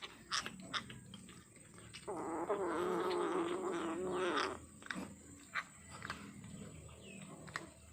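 A cat gives one long, wavering growling yowl of about two and a half seconds, starting about two seconds in. Sharp clicks of a kitten eating are scattered around it.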